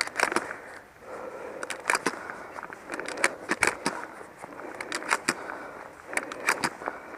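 Handling noise from a firearm and the shooter's gear: irregular sharp clicks and knocks with clothing rustle between them.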